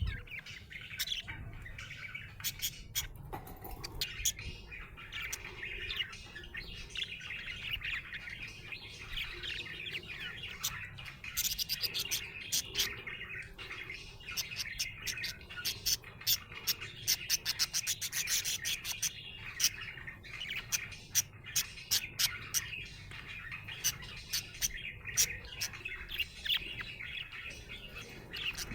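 Budgerigar chirping and warbling in a continuous chatter, scattered with sharp chirps and clicks, and rapid clicking runs twice near the middle.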